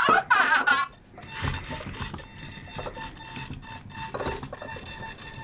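Boxer robot toy's electronic sound effects: a high warbling chirp in the first second, then soft short beeps repeating several times, with light clicks and knocks as the robot moves.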